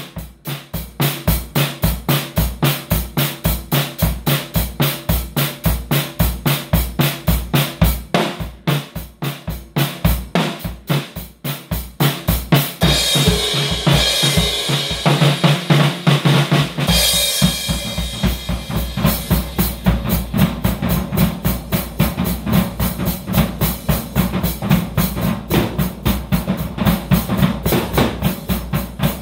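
Drum kit with Paiste cymbals played in a fast, steady groove of bass drum and snare strokes. Cymbals wash over the beat for a few seconds around the middle, and after that the low drums sound more continuously.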